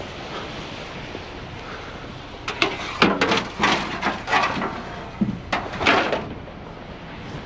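A quick run of about ten sharp knocks and clanks, starting a little over two seconds in and ending about six seconds in, like scrap metal pieces being handled and dropped.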